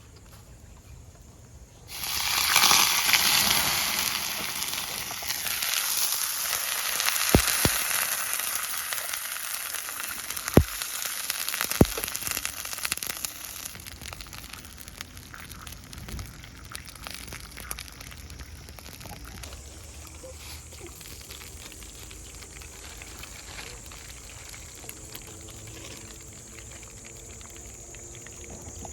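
Food sizzling in a hot pan: the sizzle starts suddenly about two seconds in, loud at first and slowly dying down, with three sharp clicks around the middle.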